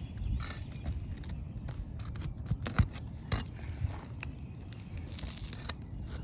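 Roof shingles being worked loose: scraping and crackling, with sharp clicks now and then.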